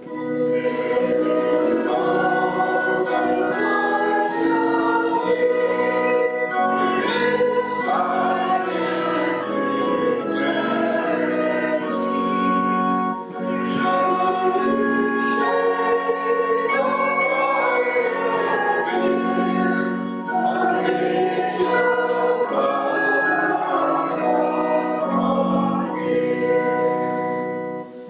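Congregation singing a hymn with organ accompaniment, verse after verse, with a brief dip between verses about halfway through.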